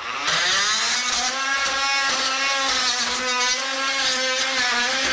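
Oscillating multi-tool with a bimetal blade running at a steady pitch, cutting off staples left in a wooden subfloor.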